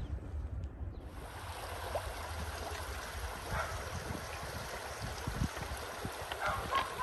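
Shallow creek running over a rocky bed, a steady rush of rippling water. Wind buffets the microphone with low thumps.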